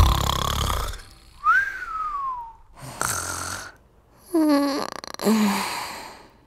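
Music fades out about a second in, then a person snores. First comes a whistling breath that rises and then falls in pitch, then a noisy breath, then two short low sounds that drop in pitch near the end.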